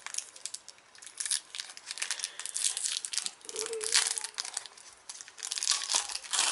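Packaging of a toy blind pack being torn open by hand: irregular crinkling and tearing, with louder bursts of crackle around the middle and near the end.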